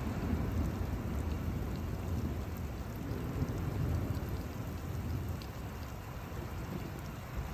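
Thunder rumbling and slowly fading away, over steady rain with scattered drops pattering.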